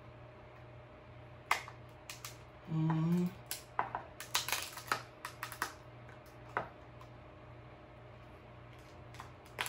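King crab leg shell cracking and snapping as it is broken apart by hand, a scattered run of sharp clicks and cracks, thickest in the middle. A short hummed 'mm' from the eater about three seconds in.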